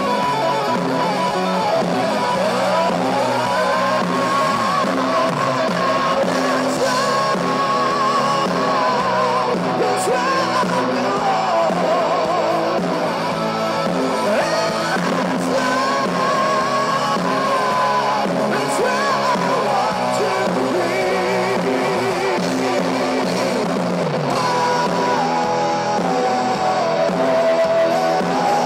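A live rock band plays at full volume: electric guitars, bass and drums. Over them a high lead line rises into long held notes that waver in pitch.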